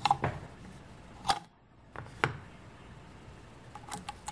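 A few sharp metallic clicks and light scrapes from a 1948 Singer 201-2 sewing machine as its chrome slide plate is pushed open and a bobbin is set into the rotary hook's bobbin case.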